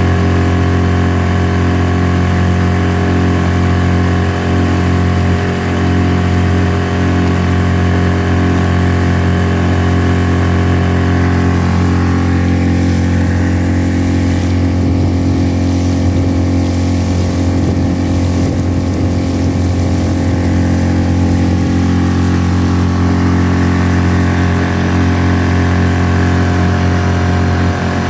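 Yamaha 4 hp long-shaft outboard motor running steadily at cruising throttle and pushing an inflatable boat along at speed, its pitch holding steady with no revving up or down.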